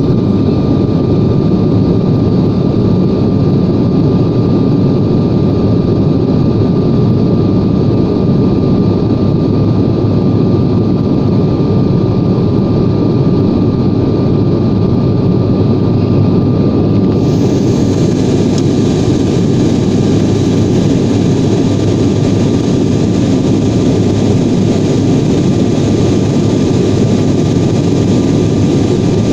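Steady, unchanging cabin noise of an airliner in flight: jet engine and airflow noise, with a faint steady whine.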